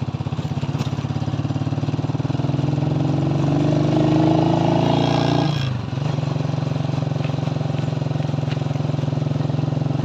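Motorcycle engine running under way as it is ridden. Its note climbs steadily for a few seconds, drops sharply a little past the middle, then runs level again.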